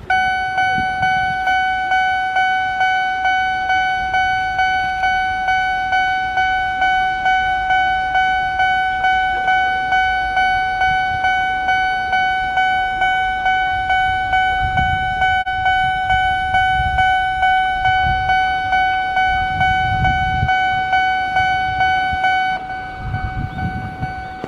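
Japanese railway level-crossing alarm ringing in a steady, repeating electronic clang, about two strikes a second, starting abruptly. Near the end it drops in level and sounds duller.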